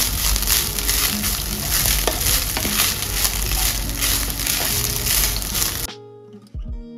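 Cooked basmati rice and fried shallots sizzling in an oiled nonstick pan while a wooden spatula stirs and scrapes through them. The frying cuts off abruptly about six seconds in, leaving soft background music.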